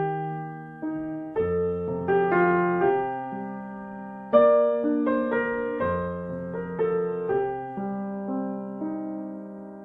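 Slow solo piano music, with notes and chords struck one after another and left to ring and fade.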